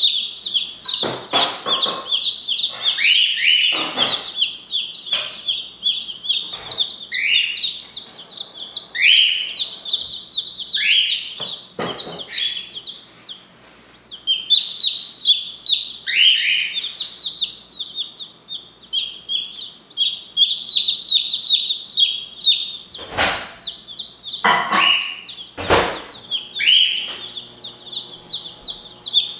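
A brooder full of Brahma chicks peeping: dense, rapid high chirps, many falling in pitch, with a short lull about halfway through. Two sharp knocks sound near the end.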